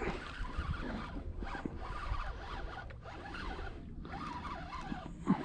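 Fishing reel being cranked against a striped bass, a rasping whir of the reel's gears in about four stretches with short pauses between them.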